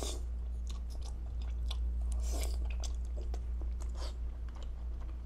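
A person chewing mouthfuls of thick, chewy liangpi cold noodles, with scattered small clicks, over a steady low hum.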